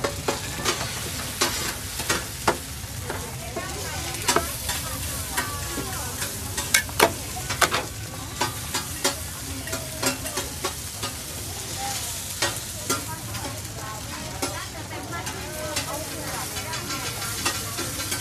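Food frying in oil on a large, flat steel pan, sizzling steadily. A metal ladle scrapes and clinks against the pan at irregular intervals as the food is stirred and pushed around.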